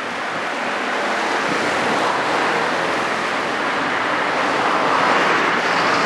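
Surf breaking and washing onto a sandy beach, mixed with wind on the microphone: a steady rushing that swells slightly toward the end.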